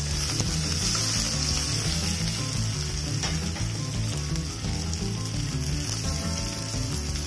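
Chopped onion sizzling steadily in hot oil in an earthenware clay pot, with a spatula stirring and scraping now and then.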